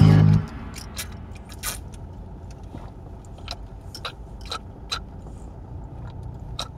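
A loud low note cuts off at the start, leaving the steady low rumble of a car driving, heard inside the cabin, with irregular small clicks scattered throughout.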